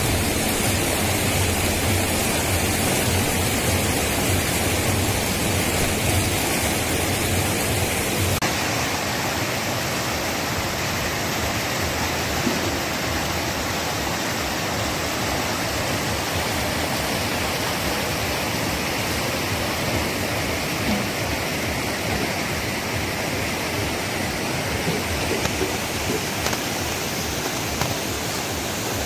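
Shallow, rocky river rushing through whitewater rapids over boulders: a steady, loud rush of water. About eight seconds in the sound changes abruptly and most of its low rumble drops away.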